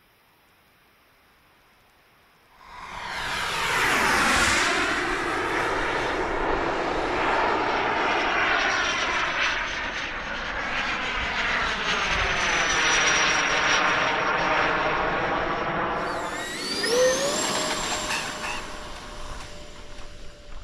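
Radio-controlled model airplane making a fast pass overhead: after about two and a half seconds of near silence, a loud engine rush with a high whine comes in, sweeping down and back up in pitch as the plane goes by. Near the end a high whine rises sharply and then holds steady.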